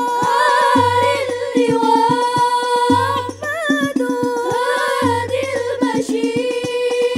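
An Al-Banjari sholawat ensemble performing live: voices singing a devotional melody together over quick, interlocking hand-drum strokes. A deep low drum note comes back about every two seconds.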